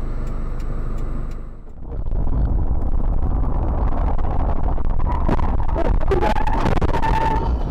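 Car engine and road noise of a car driving, heard from inside through a dashcam. A light regular ticking runs over it for the first second and a half. Then comes a short dip, and a louder, heavier rumble takes over. A wavering higher tone joins it near the end.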